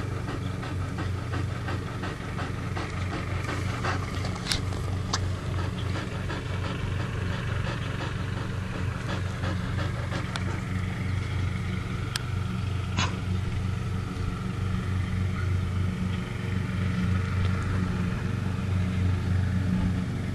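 A boxer–beagle mix dog panting, over a steady low hum, with a couple of sharp clicks.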